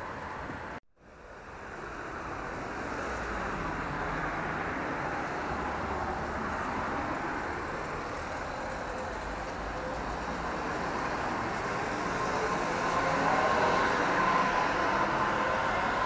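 Street ambience dominated by steady road traffic noise. The sound cuts out sharply for a moment about a second in, then fades back up and grows slightly louder toward the end.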